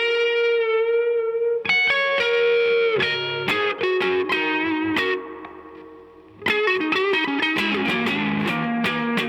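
Electric guitar played through a Mesa Boogie California Tweed amp from a Stratocaster's single-coil pickups. It opens on a held note with vibrato, then a run of picked notes rings out and fades to near quiet about five seconds in. The playing starts again about a second and a half later.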